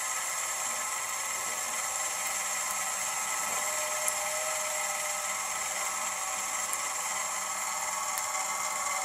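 Small DC gear motor running steadily, driving a roller chain and sprocket on a large gearbox that slowly turns a homemade solar tracker's panel frame: a steady whir with a few faint ticks.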